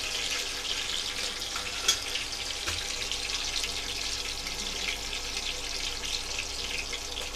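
Green chillies and cumin sizzling in hot ghee in an aluminium pot, a steady crackling hiss, with a single click about two seconds in.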